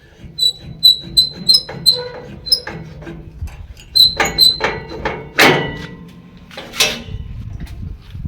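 Animal calls: a run of short, high, clear chirps repeated about three times a second, then three louder, harsher calls.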